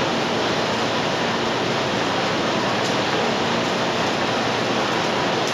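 Olive mill machinery running: a cleated elevator conveyor feeding olives into a leaf-removal blower, giving a steady, even rush of noise with a faint low hum.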